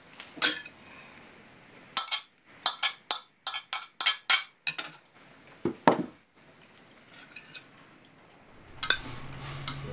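Cutlery clinking and scraping on china plates at a meal: a quick run of about a dozen sharp, ringing clinks between two and six seconds in, then a few fainter taps.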